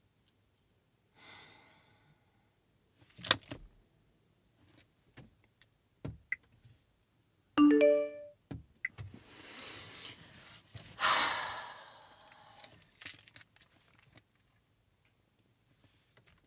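Smartphone text-message alert chiming once, a quick run of short notes, about eight seconds in, followed by two long breathy sighs. A single sharp knock sounds about three seconds in, with a few light clicks scattered around.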